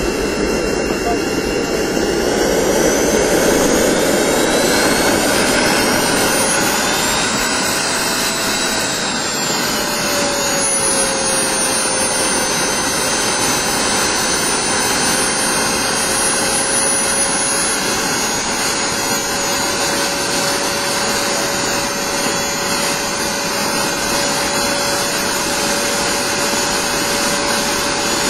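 Model jet turbine engine of a radio-controlled aircraft running loud, its high whine climbing over the first several seconds and then holding steady over a constant rushing blast.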